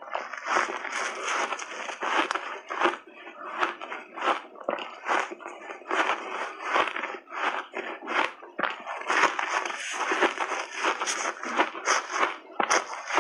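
Close-miked crunching and chewing of a big mouthful of refrozen shaved ice: a dense, irregular crackle of ice crystals breaking between the teeth.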